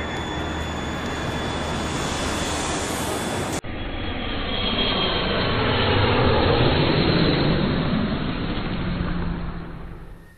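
Jet airliner engine noise: a steady roar with a faint high whine, cut off abruptly about three and a half seconds in by a second recording of jet noise that swells to its loudest in the middle and fades near the end.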